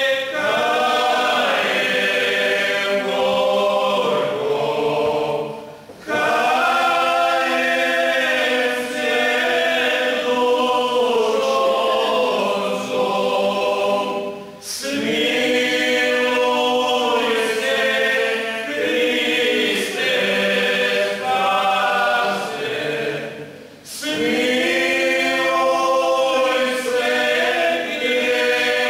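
Male folk vocal group of seven singing a Lenten church song a cappella, in long held phrases with short pauses for breath about every nine seconds.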